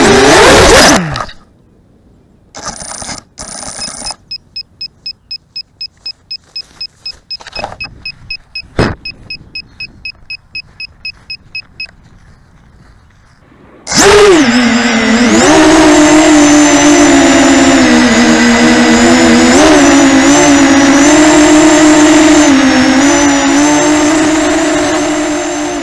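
FPV racing quadcopter's brushless motors and propellers cut out as it crashes into the grass about a second in. Then a high electronic beep repeats about two to three times a second for roughly eight seconds, with one sharp knock partway through. About 14 seconds in, the motors come back on loud and whine steadily, fading near the end.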